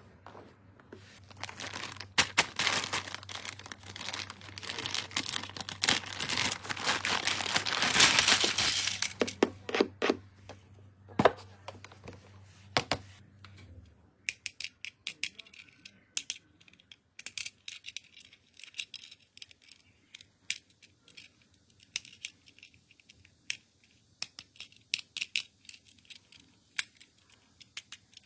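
Toy packaging being torn open and crinkled for several seconds, followed by scattered sharp clicks and light taps as the small toys and pieces are handled.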